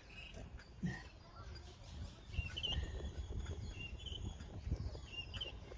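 Mallard ducks feeding on grass, with soft scattered pecking and pattering, a few faint short high chirps, and a low rumble underneath.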